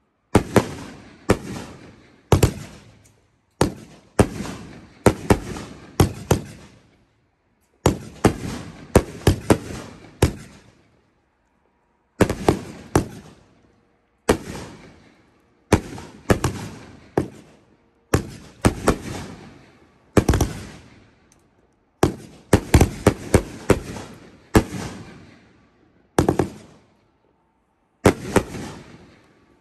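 Consumer aerial fireworks shooting and bursting overhead: clusters of sharp bangs about once a second, each trailing off in echo, with two brief pauses, about a third of the way in and near the end.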